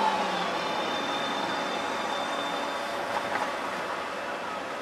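STIB T2000 low-floor tram rolling past and moving away on street track: a steady rumble of wheels on rail, with a thin, steady high whine through the first few seconds.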